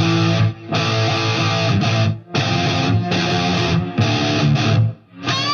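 Guitar-led music, played in phrases with about three short breaks between them.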